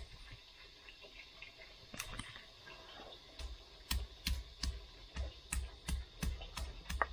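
Stone pestle (ulekan) pounding and crushing chilies, garlic and shallots on a flat stone mortar (cobek). It gives sharp stone-on-stone knocks, each with a dull thud. The knocks are scattered at first and settle into a steady beat of about three a second from halfway.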